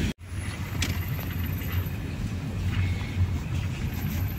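Steady low hum of a car's engine and tyres heard inside the cabin as it moves slowly, with a few faint clicks.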